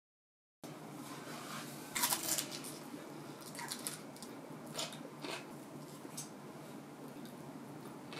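Quiet eating at the table: a cluster of crisp crunches and clicks about two seconds in, then scattered small clicks and crunching as food is picked up with chopsticks and bitten.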